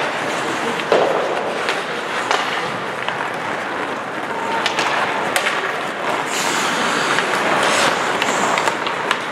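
Ice hockey skates scraping and carving on the rink, with scattered sharp clacks of sticks and puck.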